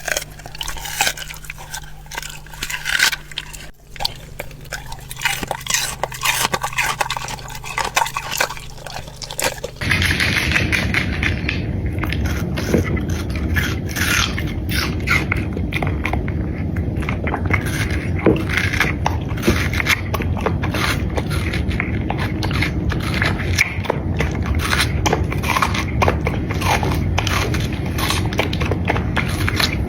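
A dog chewing food, with many sharp crunches and bites. About ten seconds in, a steady low background rumble comes in under the chewing.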